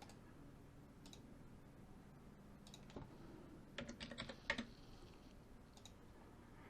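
Faint computer keyboard clicks against quiet room tone: a few isolated keystrokes, then a quick cluster of them about four seconds in.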